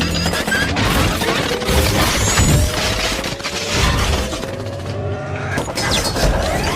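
Sound design for the Decepticon robot Blackout: dense metallic clanking, crashing and mechanical whirring, with a whine rising slowly through the middle.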